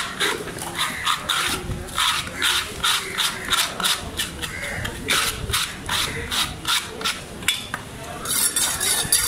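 Large steel fish knife being sharpened in quick, rhythmic scraping strokes, about three a second. A brief hiss comes near the end.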